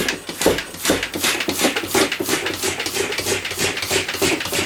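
Rapid, vigorous strokes of a hand track pump inflating a tubeless mountain-bike tyre, each stroke a short rush of air, about two to three a second.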